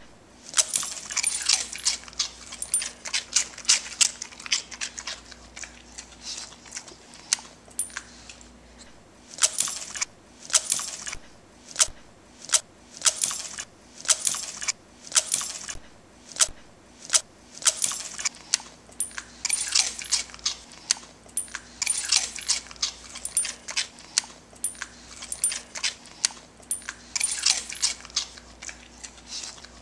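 A puggle crunching veggie stix: runs of crisp crunches, about one a second, with a couple of short pauses between mouthfuls.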